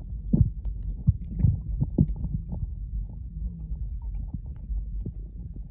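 Muffled underwater sound from a camera microphone held below the sea surface: a steady low rumble with irregular dull thumps, busiest in the first half.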